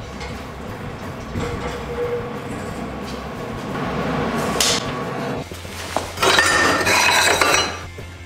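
Metal parts clinking and rattling, loudest in a stretch from about six to seven and a half seconds in.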